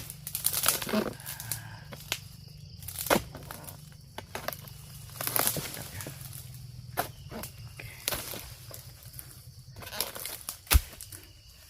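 Oil palm harvesting: a series of chopping, scraping and crunching noises in dry palm fronds, then a sharp heavy thud near the end as a cut fruit bunch hits the ground.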